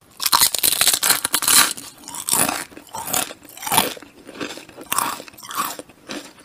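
A mouth chewing and smacking as it eats. The chewing is dense and fast for about the first two seconds, then settles into regular chomps about one and a half a second.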